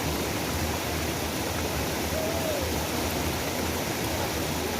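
River waterfall rushing, a steady, unbroken roar of falling water.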